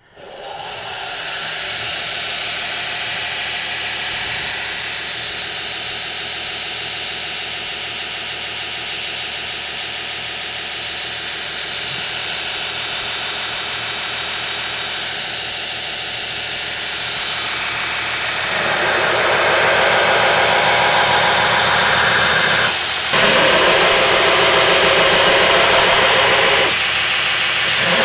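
Knife grinder (belt grinder) motor spinning up and running steadily; about two-thirds of the way through it grows louder and hissier as the rough steel tang of a knife is pressed against the moving abrasive belt, with two brief breaks in the grinding.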